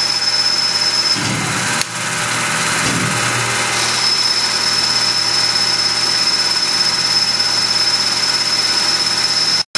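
Tormach Duality CNC lathe turning an aluminum part: steady running machine noise with a high whine that stops about a second in and comes back about four seconds in. A single click comes a little before the two-second mark, and the sound cuts out for an instant near the end.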